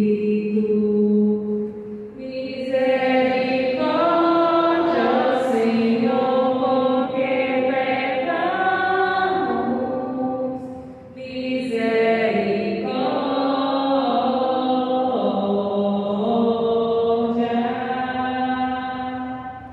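A woman singing a Portuguese responsorial psalm chant into a microphone, in long held phrases with short breaks about two and eleven seconds in.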